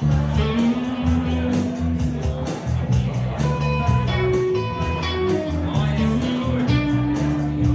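Band playing an instrumental break: guitar with bass and drums keeping a steady beat.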